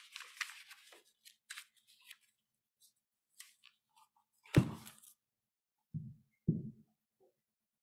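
Pages and a book being handled at a lectern microphone: crisp rustling and small clicks at first, then a sharp knock about halfway through and two softer thuds about a second and a half later.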